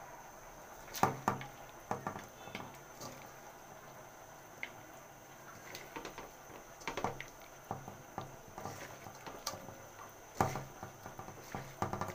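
Small whole fish, tomato, onion and green chillies being mixed by hand with spice paste in a pan: wet squelching and slapping, with irregular knocks against the pan.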